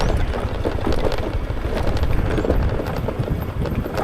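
Wind rumbling on the microphone of a moving motorbike, with irregular small knocks and rattles throughout.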